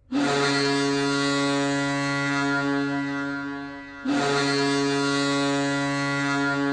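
Boston Bruins goal horn, a recording, sounding a deep chord in two long blasts: the first lasts about four seconds, and the second follows straight after and is still going at the end.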